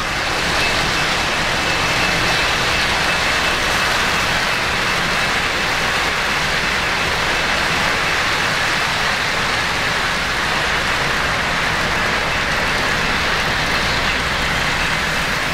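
3-rail O-scale model freight train running past, a steady rolling rush of wheels on the metal track.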